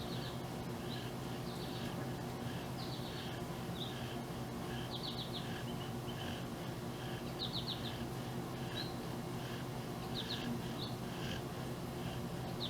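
Songbirds chirping: quick runs of three or four high chirps every second or two over a softer, evenly repeated short note, with a steady low hum underneath.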